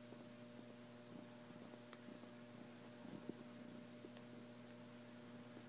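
Near silence: room tone with a faint steady hum and a couple of soft clicks.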